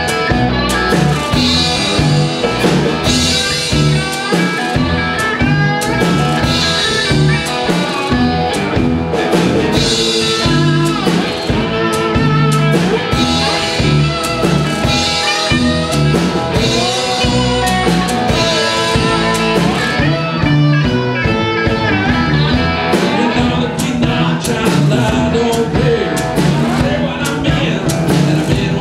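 Live blues-rock band: a homemade box guitar played with a slide, with wavering sliding notes over a drum kit and other guitars, at a steady beat.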